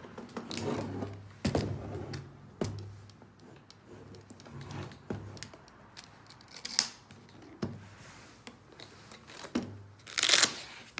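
Small objects being handled: scattered clicks and knocks, with a brief loud rustle about ten seconds in.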